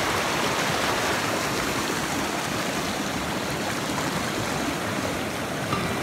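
Fast mountain river rushing over rocks in white-water rapids, a steady, even rush of water.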